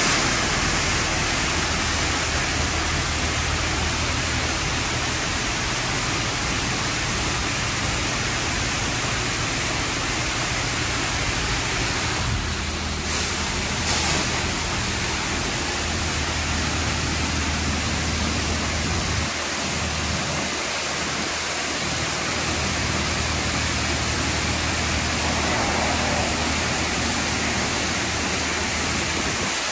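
Water Wizard car-wash arch spraying high-pressure water, a steady loud hiss of spray with a low machinery hum underneath. Two brief sharper hits come about 13 and 14 seconds in.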